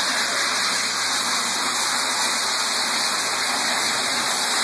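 Onfloor 16 deck and floor sander running steadily, a constant rushing noise from its spinning sanding heads as they take the loose paint and top layer of coating off the deck boards.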